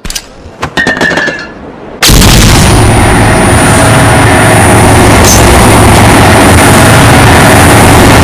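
Heavily distorted, ear-splitting explosion-like noise edited in as a loud-sound prank. It bursts in about two seconds in at full loudness with a steady high whine running through it and cuts off suddenly after about seven seconds. A few quieter clicks and hits come before it.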